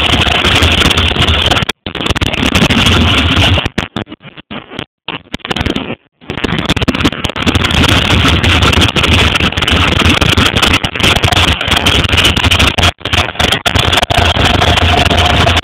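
Harley-Davidson Shovelhead V-twin engine with an open primary chain, running steadily with a loud, distorted, hissy sound. The sound drops out briefly about two seconds in and again for about two seconds around the middle before the engine comes back at full level.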